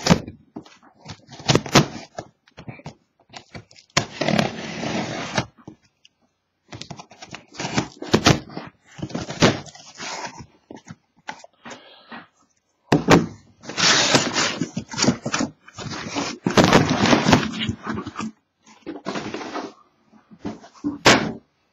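Cardboard shipping case slit open along its taped seam with a pocket knife, then the flaps pulled back and the card boxes slid out and stacked: bursts of cardboard scraping and rustling with dull knocks, stopping and starting.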